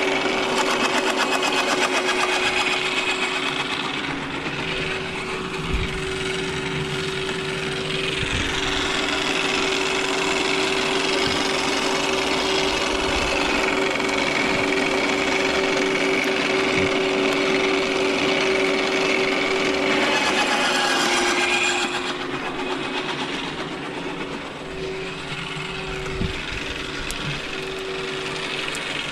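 Electric garden shredder running with a steady motor whine, its cutter grinding up branches pushed into the hopper. About twenty seconds in the grinding eases and the motor runs on with no branches in it, with a single knock a few seconds later.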